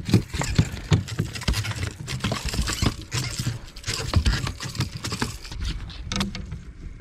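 Freshly landed striped bass flopping on a boat deck: quick, irregular slaps and thumps, several a second.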